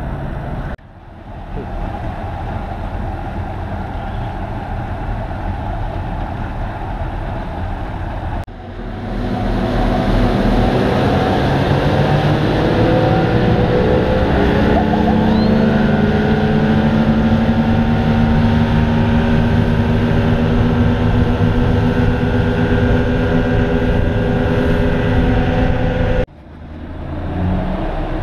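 Twin outboard motors on a Shark Cat boat running. After a cut about eight seconds in, the engines climb in pitch as the boat speeds up, then hold a steady, louder high-speed drone; abrupt cuts break the sound near the start and near the end.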